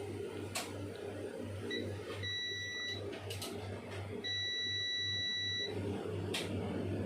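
Digital multimeter's continuity beeper sounding twice, a short steady beep about two seconds in and a longer one about four seconds in, as the probes find a dead short across the capacitor. Under it runs a low hum that pulses about twice a second.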